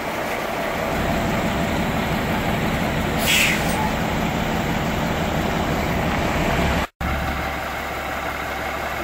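Heavy-duty wrecker tow truck's diesel engine idling steadily, with a short hiss of air about three seconds in. The sound drops out for an instant about two-thirds of the way through.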